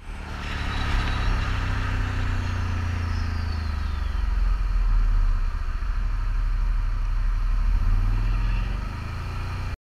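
Can-Am Outlander ATV engine running steadily at low speed, with its pitch sinking slightly over the first few seconds.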